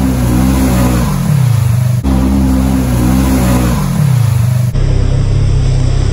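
Side-by-side UTV engine revving hard while it ploughs through a deep mud hole, the pitch held high and wavering, then falling away as the throttle comes off. The same rev-and-drop comes again after a cut about two seconds in. Near the end it changes to a steadier, lower engine note.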